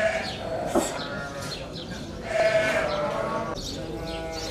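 Sheep and goats bleating: about three long bleats one after another, with a short sharp click about a second in.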